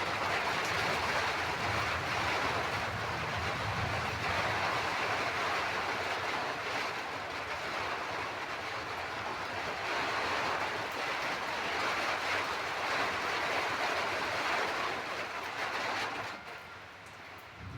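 Steady rain, an even hiss that falls away near the end.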